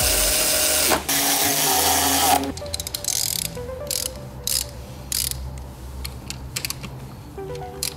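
Cordless electric ratchet running as it drives in a bolt, for about two and a half seconds with a short break near one second. It is followed by scattered sharp clicks of a hand ratchet wrench being worked on a bolt.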